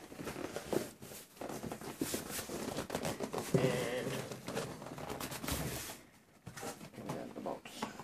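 Cardboard shipping carton being handled: flipped over, slid across the workbench and its flaps pulled open, with irregular cardboard scraping, rubbing and knocks.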